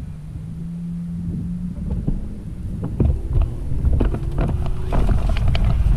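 Wind buffeting the microphone in a heavy low rumble, growing louder toward the end, with a short steady hum early on and a series of sharp clicks and knocks in the second half.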